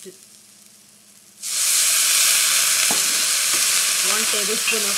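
Water poured into a hot pan of sprouts tempered in ghee, flashing to steam and sizzling. The loud hiss starts suddenly about a second and a half in and then holds steady.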